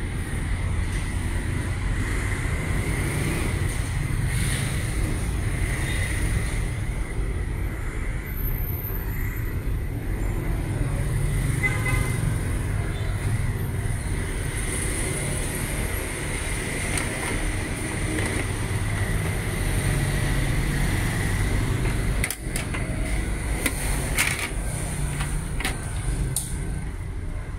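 Steady low background rumble, with a few short clicks near the end.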